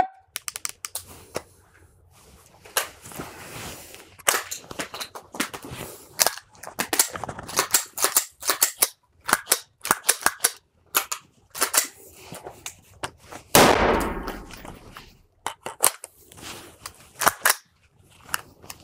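AR-15 rifles worked through a double-feed clearance drill: a dense run of sharp metallic clicks and clacks as magazines are stripped out and reinserted, charging handles racked and bolts slammed forward. The loudest event, about thirteen and a half seconds in, is a rifle shot ringing in the indoor range.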